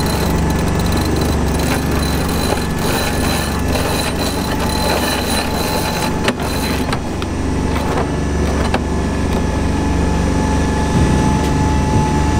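Steady low drone and rushing wind-and-water noise of a sailboat under way, with scattered short clicks as the sheet winch is cranked by hand.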